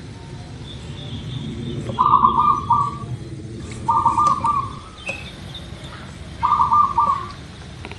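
Zebra dove (perkutut) cooing: three short phrases of quick, stuttering coo notes, each under a second long and about two seconds apart, over a steady low background hum.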